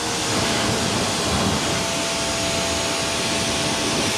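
Electric pressure washer running, its motor giving a steady whine under the hiss of the water jet blasting a car's tyre and wheel arch.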